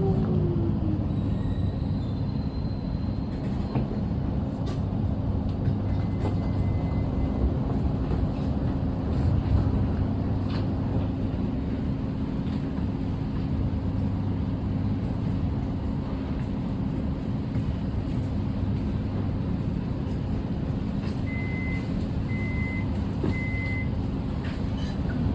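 Melbourne suburban electric train heard from inside the carriage. The motor whine falls away as it draws to a stop at the start, then the train stands with a steady low rumble and hum. There is a single short high beep about six seconds in and three short beeps near the end, the train's door warning before departure.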